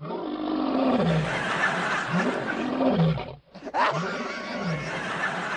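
Lion roaring in a series of rising-and-falling roars, with a brief break about three and a half seconds in before the roaring resumes.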